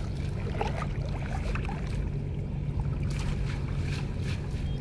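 Water splashing and dripping as a wet mesh fishing net is lifted and shaken in shallow water, in short irregular splashes, over a steady low rumble.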